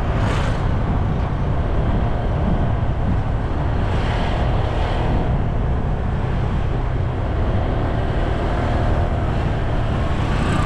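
Steady rumble of wind on the microphone mixed with road-vehicle engine noise. A motorcycle passes near the start, and a motorised tricycle passes near the end with a rising engine note.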